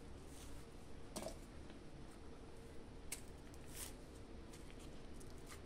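A few faint soft knocks and squishes as peeled bananas are dropped into a stainless-steel mixer-grinder jar onto apple pieces and dates, over a low steady hum.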